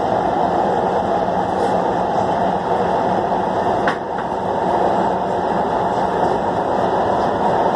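Metro Red Line subway train running through a tunnel, heard from inside the car: a loud, steady running noise, with one sharp click about four seconds in.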